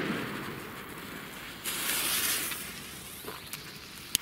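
A firecracker being lit with a jet lighter: steady hissing and fizzing, louder and brighter for about a second near the middle, then one sharp click near the end.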